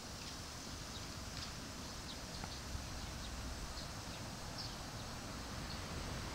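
NSB Class 75 (Stadler FLIRT) electric multiple unit standing at the platform: a steady low hum of its running equipment, with faint short high chirps scattered through.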